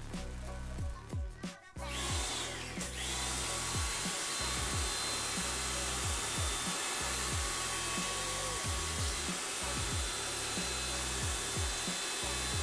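Electric pressure washer starting about two seconds in and then running steadily with a whine, its water jet spraying a car's AC condenser. Background music with a repeating bass line plays throughout.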